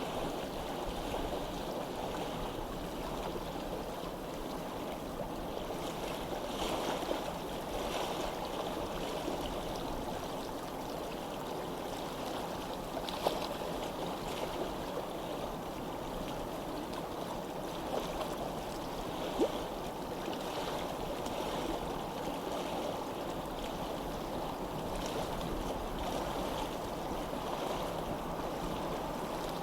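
Running water, a steady babble of flowing water with small splashes and drips here and there.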